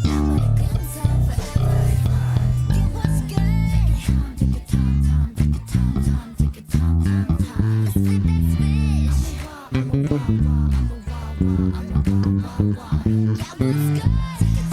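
Ibanez BTB866SC six-string electric bass playing a busy line of short, rapidly changing low notes over a pop backing track, with some sung vocal lines in the mix.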